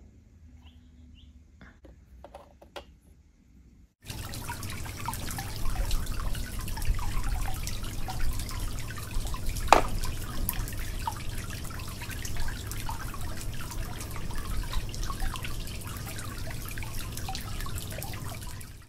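Miniature dollhouse faucet running, a thin stream of water trickling and splashing into a small plastic sink over a low steady hum. It comes on suddenly about four seconds in, after a few faint taps, with one sharp click partway through.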